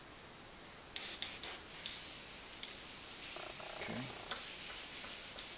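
Airbrush spraying black paint: a few short hisses as the trigger is pulsed about a second in, then a steady hiss of air and paint.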